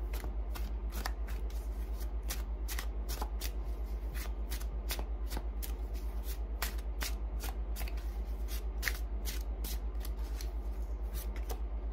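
Tarot deck being shuffled by hand: a steady run of quick card slaps and rustles, about three or four a second, over a steady low hum.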